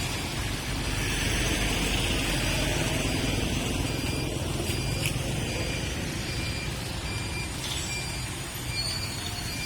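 Motor traffic passing on a wet city street, with tyre hiss swelling as a vehicle goes by in the first half. A short high beep repeats at an even pace throughout.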